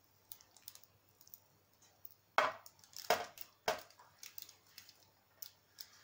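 Scattered light clicks and knocks, the three loudest about two and a half, three and three and a half seconds in.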